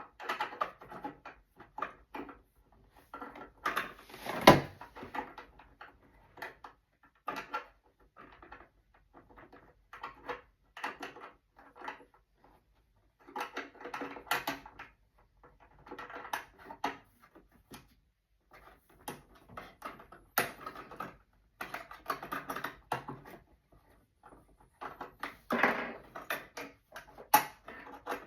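Irregular clicking and clattering of hands working on a second-hand sewing machine and its bobbin parts, in uneven clusters with pauses, with one sharp knock about four seconds in.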